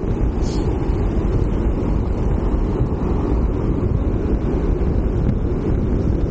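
Wind buffeting the microphone of a bike-mounted Insta360 ONE X2 action camera while the gravel bike is ridden: a steady, low rumbling noise.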